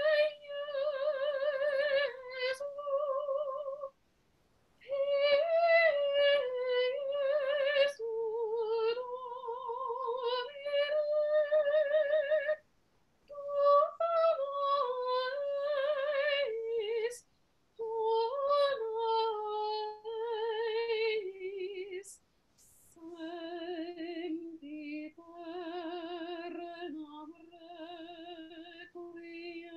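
A woman singing solo and unaccompanied, with vibrato, in phrases broken by short pauses; the last few phrases sit lower in pitch.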